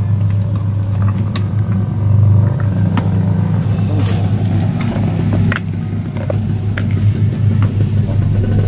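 A steady low hum with scattered light clicks and knocks.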